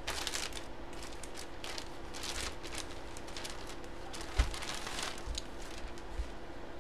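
Thin plastic bag crinkling and rustling as a jersey is pulled out of it, with a dull thump a little after four seconds in and a smaller knock near the end.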